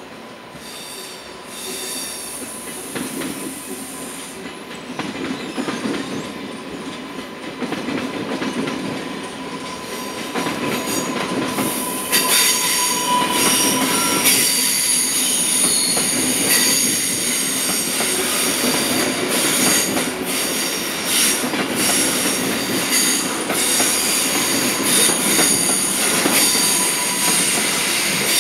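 SBB electric passenger trains rolling slowly through the station tracks, with a steady rumble and high-pitched wheel squeal from the curves and points. About twelve seconds in, a train passing close by makes it louder: a shrill, many-toned squeal with repeated knocks of wheels over rail joints.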